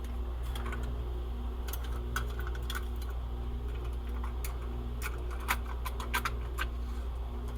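Irregular small clicks and taps of hands handling wires and metal parts while hooking up an S gauge train accessory's wiring, over a steady low hum.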